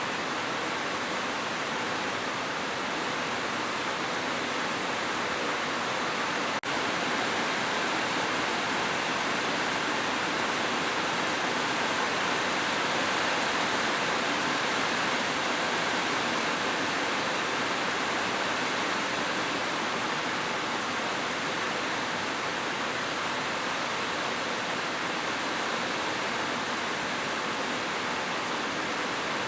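Steady, dense rainfall as an even hiss, with a brief dropout about six and a half seconds in.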